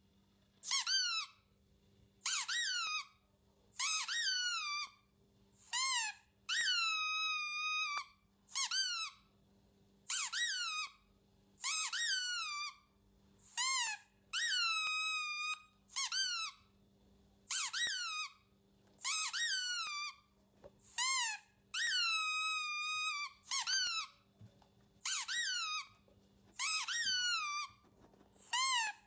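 Squeaky toy squeezed over and over: about twenty squeaks, each a whistle that falls in pitch, most short and a few drawn out to about a second, roughly one every second or so.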